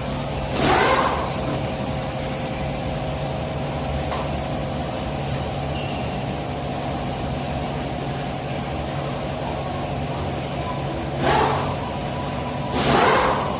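Vehicle engine running steadily, with three short swells of rushing noise: one about a second in and two near the end.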